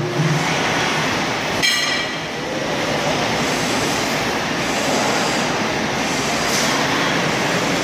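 Electric coil-transfer trolley loaded with a steel coil, its drive unit running steadily as it rolls across a concrete floor. A brief ringing metallic clink sounds nearly two seconds in.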